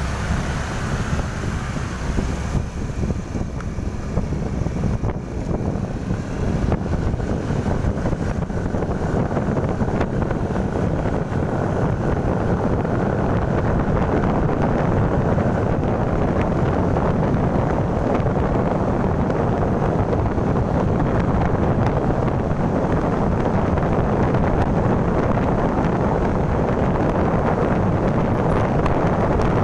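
Wind rushing over the microphone of a moving motorcycle, with engine and road noise underneath; it grows a little louder about ten seconds in.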